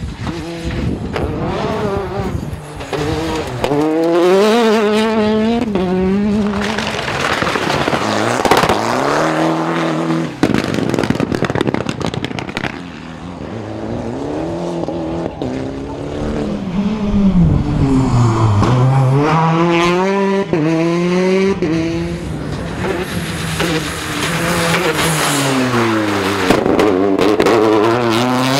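Rally car engines at full throttle, their pitch climbing hard through the gears and dropping away again as cars pass and brake, several times over.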